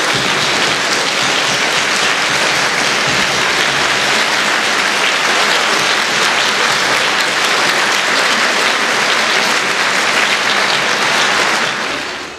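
Concert audience applauding, a dense even clapping that dies away near the end.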